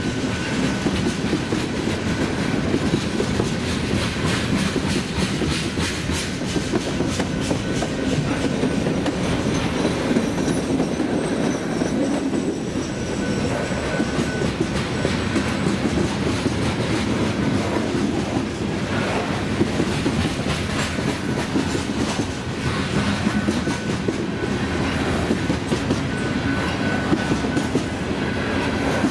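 Freight train of tank cars and covered hopper cars rolling past at speed: a steady rumble with the clickety-clack of wheels over the rail joints.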